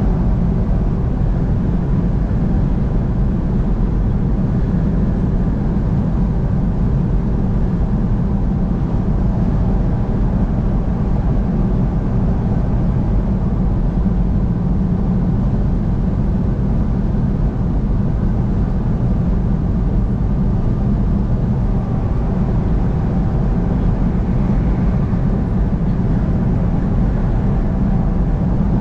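Steady road and engine noise of a vehicle travelling at highway speed, a continuous low rumble with no change in level.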